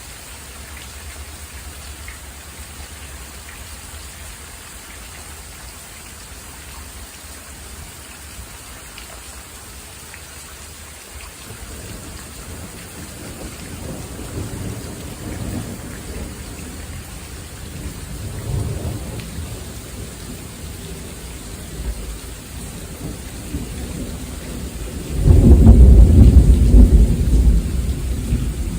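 Steady rain hiss with thunder rumbling low and building from about halfway through. Near the end a much louder, sudden peal of thunder breaks in and goes on rumbling.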